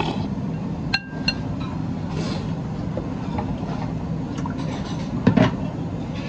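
Glass and ceramic tableware clinking: two sharp ringing clinks about a second in and a louder knock a little after five seconds, as water is poured from a glass pitcher into a drinking glass. A steady low hum runs underneath.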